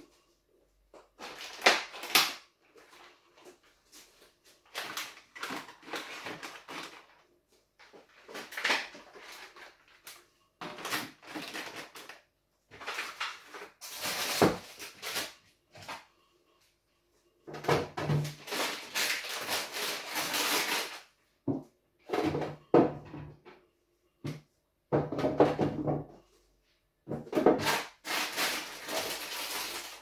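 Irregular rustling, knocks and clatter of food packaging and clear plastic fridge containers being handled and set into the fridge, in short bursts with brief pauses between them.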